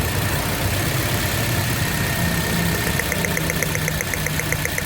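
Toyota Yaris engine idling steadily during a coil-by-coil misfire check, where the coils tested here are found good. From about three seconds in, a fast, even ticking of roughly eight a second runs over the idle.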